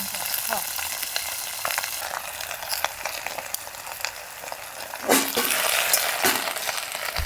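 Food sizzling and frying in a hot pan, a steady sizzle dotted with small crackles and pops. The sizzle swells louder about five seconds in, then eases back.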